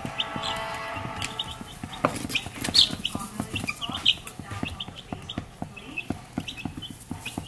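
Two-week-old chicks peeping in a brooder, many short high chirps overlapping, with scattered sharp clicks and scratches as they peck and scratch in wood-shavings bedding.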